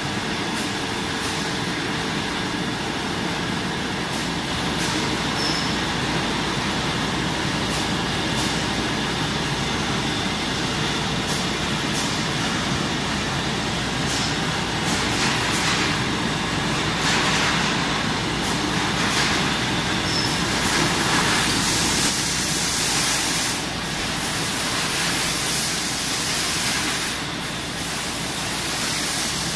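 Sidel SBO 10 rotary stretch blow moulding machine running: a steady mechanical drone with repeated sharp hisses of compressed air, which grow denser about halfway through.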